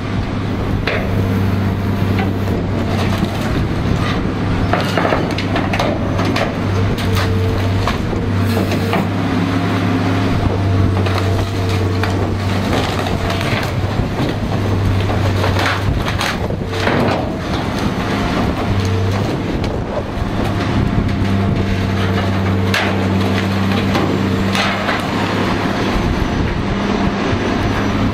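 Caterpillar excavator's diesel engine running steadily under load while its demolition grapple crushes and tears through wood and rusted steel, pulling a fuel tank from the boat's hold. Repeated sharp crunches and clanks sound over the engine hum, the loudest a little past halfway.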